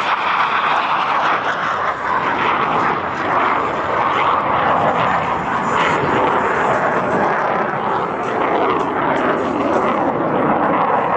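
Jet engine noise from U.S. Air Force Thunderbirds F-16 Fighting Falcons flying a demonstration maneuver, loud and steady.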